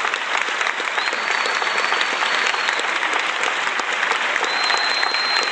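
Crowd clapping in steady applause, with two thin high steady tones held over it, one about a second in and one near the end.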